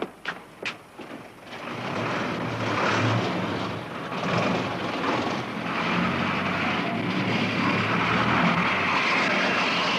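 A few sharp knocks, then a heavy engine drone that swells in over about a second and a half and runs steadily and loud.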